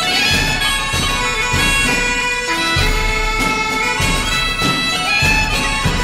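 Background music: a wind-instrument melody of held notes over a steady low drone, with a regular low beat.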